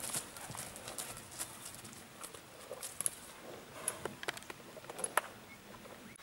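Two young racehorse fillies walking on a grassy track, their hooves making irregular soft steps.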